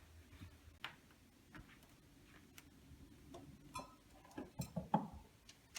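Faint, scattered light clicks and taps of kitchen utensils and dishes being handled, a few with a brief clink, bunching together near the end.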